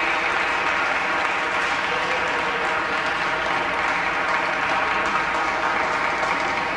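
Audience applauding: a steady spread of clapping.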